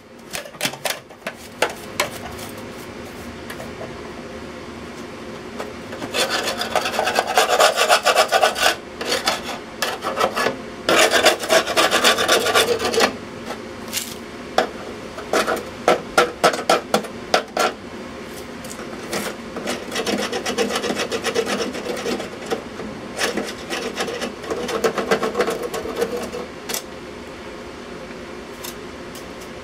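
A hand scraper scraping rust and loose scale off the rusted top of a metal electrical box, in spells of rapid strokes with short pauses between. This is the surface being cleaned back so that a two-part filler compound will bond.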